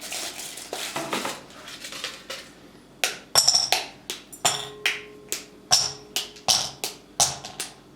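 Kitchen utensil clinking against a dish: soft handling and scraping at first, then about a dozen sharp ringing strikes, roughly two a second, from about three seconds in.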